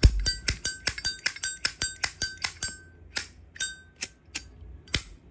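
Zippo lighter with a pink-plated brass case, its lid flicked open and snapped shut over and over: sharp metallic clicks, several of them ringing briefly, quick at first and then slower.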